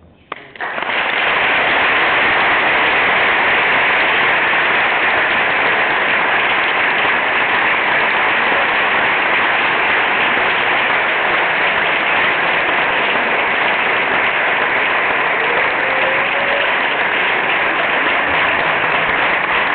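Applause from a large seated audience, starting abruptly about half a second in and holding steady and loud throughout.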